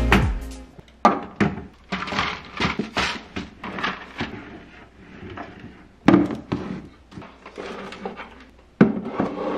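Jars and boxes being set down and shifted on a kitchen cabinet shelf and plastic turntable: a string of light knocks and thunks, the sharpest about six seconds in.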